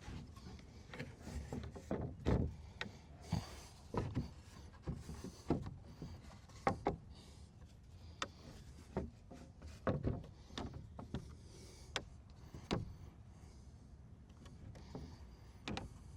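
Wooden 2x4 boards being handled and slid into place on a wooden shed floor frame: a dozen or so irregular knocks and thuds with a few short scrapes of wood on wood.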